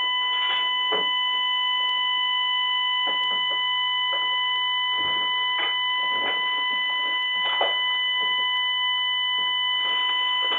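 A continuous electronic tone, steady in pitch and level and unbroken throughout, with faint irregular knocks and rustles beneath it.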